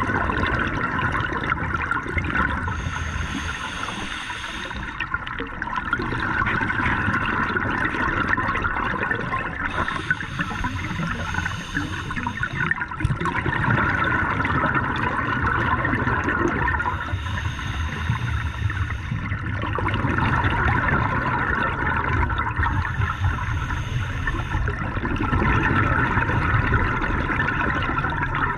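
Scuba regulator breathing underwater: a hiss on each inhale and a bubbling rush of exhaled air on each exhale, repeating in a slow, even cycle about every six to seven seconds.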